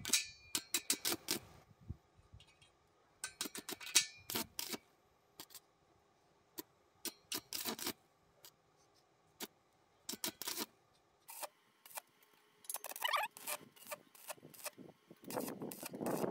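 Stick (arc) welding on a steel square-tube joint with a small portable arc welder: the arc crackles and spits in short irregular bursts with pauses between, striking and cutting out repeatedly, then runs more steadily near the end.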